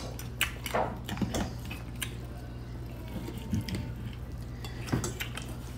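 Knife and fork cutting steak on a plate: scattered light clicks and scrapes of the cutlery against the plate, over a low steady hum.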